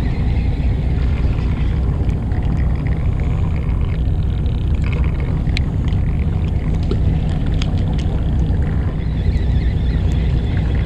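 Fishing boat's engine running, a steady low drone, with a few faint ticks in the middle.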